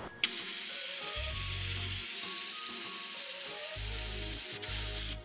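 Pneumatic vacuum brake bleeder running on compressed air, a steady hiss as it sucks the old brake fluid out of a motorcycle's front brake master cylinder reservoir. It starts abruptly just after the start, breaks off for an instant about four and a half seconds in, and cuts off near the end.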